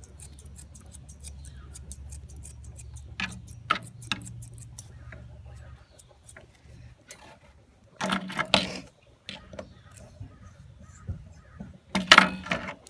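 Thinning shears snipping through a Newfoundland dog's foot hair: a quick run of sharp clicks over a low hum, which fade out about five seconds in. Two louder bursts follow, one about eight seconds in and one near the end.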